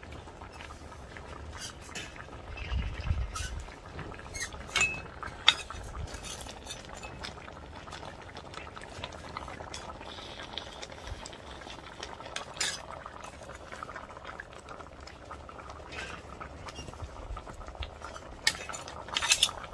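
Metal utensils clinking and knocking against a Dutch oven now and then, with a small cluster of clinks near the end, over the steady bubbling of a simmering braising sauce.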